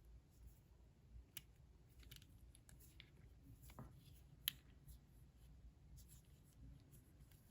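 Faint, scattered small clicks and scrapes of metal lock picks working inside a lock, with one sharper click about four and a half seconds in.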